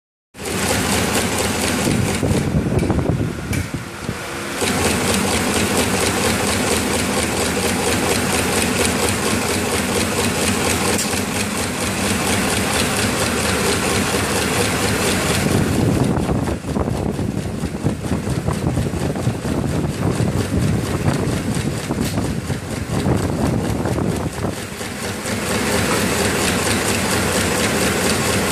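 CNC broom tufting machine running, its tufting head rapidly punching bundles of plastic bristles into a broom head: a fast, steady mechanical clatter of strokes over a machine hum.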